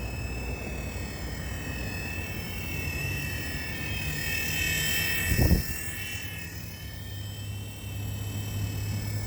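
Mini RC helicopter's small electric motor and rotors whining steadily in flight, growing louder toward the middle and then easing off. A brief low thump about five and a half seconds in.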